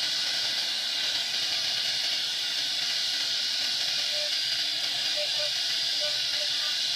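CNC router running, a steady high hiss that holds level throughout.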